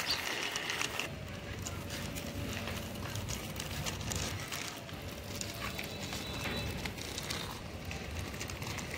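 Faint rustling with light scattered clicks: a small plastic toy auto rickshaw and its plastic packaging being handled.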